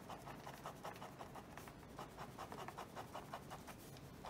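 Ballpoint pen scratching on paper on a clipboard in quick, rhythmic back-and-forth strokes, the sound of hatching a shadow.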